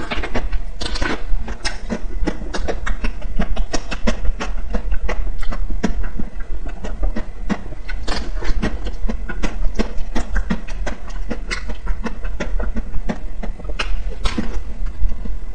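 Close-miked wet mouth sounds of eating an ice cream bar: dense, irregular sucking, licking and lip-smacking clicks, several a second, over a steady low hum.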